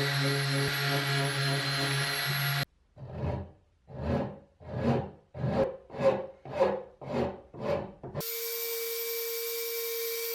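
A steady machine hum that cuts off abruptly, followed by about eight rhythmic back-and-forth strokes of a hand tool working wood, each swelling and fading and coming slightly faster toward the end. A little after eight seconds this cuts abruptly to a different steady machine tone with a hiss.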